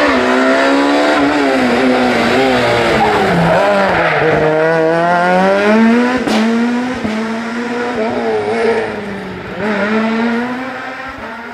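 Rally car engine running hard at high revs. Its pitch dips about four seconds in, then climbs and drops several times as it pulls through the gears, with a sharp crack about six seconds in.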